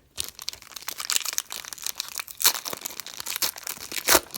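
Foil wrapper of an NFL trading card pack crinkling and tearing as it is ripped open by hand: a dense run of sharp crackles with louder rips about two and a half seconds in and again near the end.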